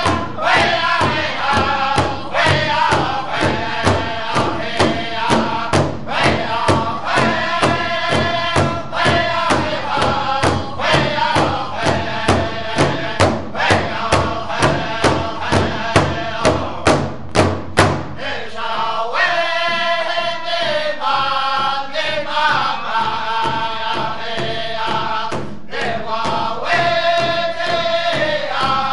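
A drum group of men singing together over a large hide drum, which several drummers strike in a steady beat with drumsticks. Near the middle comes a run of hard strokes, after which the drumming drops to lighter strokes under the singing.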